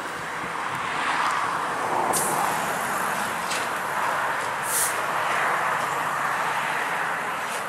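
TTC CLRV (Canadian Light Rail Vehicle) streetcar rolling along its rails and pulling away, a steady running noise with a few brief high hisses.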